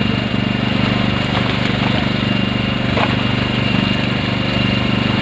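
A fishing boat's engine running steadily, a low, even drone with a rapid pulsing beat, with a thin steady high whine above it.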